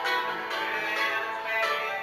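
Bluegrass band playing: banjo, mandolin, acoustic guitar and upright double bass together.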